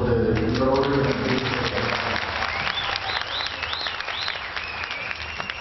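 Audience clapping and applauding, a dense patter of many hands. A voice trails off in the first second, and from about halfway a high wavering tone rises and falls over the clapping.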